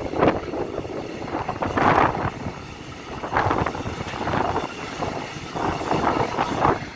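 Freight train of tank wagons passing close by: steel wheels rumbling and clattering on the rails, with louder surges every second or two as the wagons' bogies roll past. The last wagon goes by near the end.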